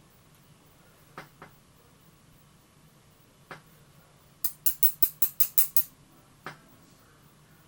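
Small metal clicks of pins and springs being worked out of a pin-tumbler lock's chambers, then a quick run of about eight light, sharp taps over about a second and a half.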